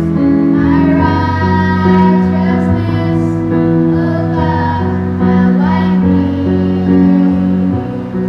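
A boy and a girl singing a worship song together into microphones, over an instrumental accompaniment.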